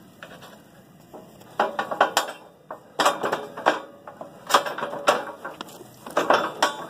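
Loose small metal hardware, lag screws and the like, clinking together as it is handled and gathered. It comes in quick clusters of sharp clicks, starting about one and a half seconds in.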